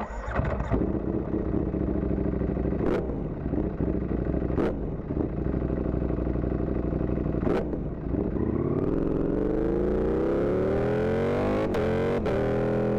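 Ducati V4 motorcycle engine running at idle through a loud aftermarket exhaust, recorded from under the seat, with a few sharp clicks. About eight seconds in, the engine speed climbs smoothly over two seconds and holds at a higher idle. The sound cuts out briefly twice near the end.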